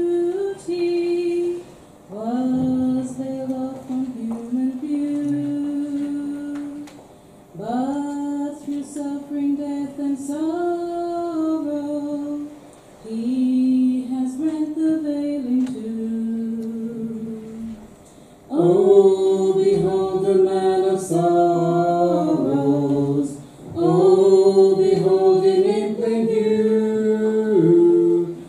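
A man and a woman singing a sacred song together without accompaniment, in phrases of a few seconds with short breath pauses between them. The singing becomes louder about two-thirds of the way in.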